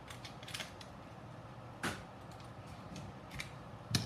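Scissors and a small plastic package handled on a work mat: a few short clicks and snips as the package is cut open, with a sharper click about two seconds in and another near the end.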